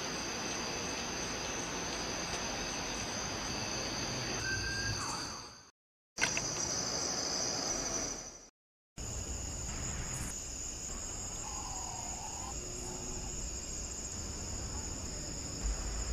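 Night insects, such as crickets, chirping in a steady high-pitched chorus. The sound cuts out suddenly twice, for a moment each time.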